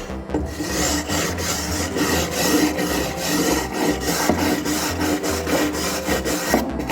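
Wooden swiftlet nesting boards being rubbed with quick, repeated rasping strokes as mold is cleaned off them.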